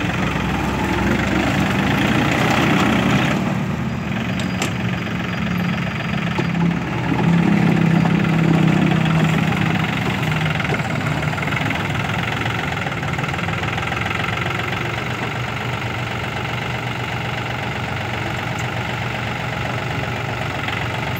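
Yanmar EF393T compact tractor's diesel engine running under load while its rear-mounted rotary tiller churns grass and soil. The engine note swells louder about two seconds in and again from about seven to ten seconds in.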